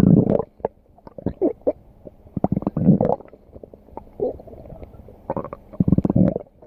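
Stomach growling and gurgling in irregular bursts, with louder rumbles at the start, around three seconds in, and again about five and a half seconds in.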